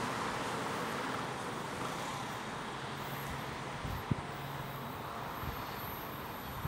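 Steady road-traffic and wind noise with a faint low engine hum, and one sharp click about four seconds in.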